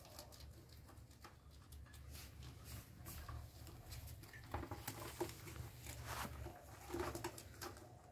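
Rabbits chewing and rustling fresh leafy stems: faint, irregular crunching and leaf rustling, busier in the second half.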